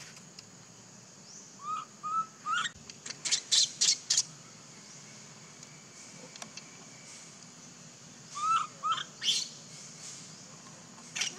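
High-pitched animal calls in two bouts, each a few short hooked notes followed by a quick run of shrill squeaks, over a faint steady high hiss.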